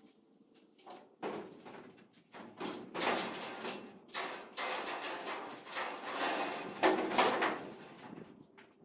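Tall aluminium extension ladder rattling, clanking and scraping as it is moved upright across the floor, in a run of irregular knocks and scrapes; the loudest clanks come about seven seconds in.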